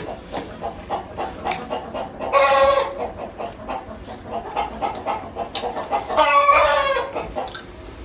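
Chickens calling twice: a short call about two seconds in and a longer call about six seconds in that drops in pitch at its end, over faint scattered clicks.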